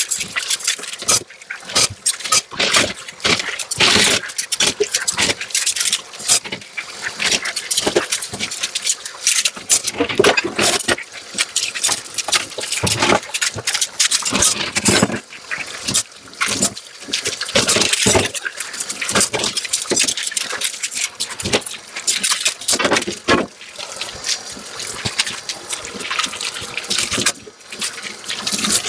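Dishes being washed by hand in a sink: a dense, irregular run of clinks and knocks of crockery and scrubbing, with water running.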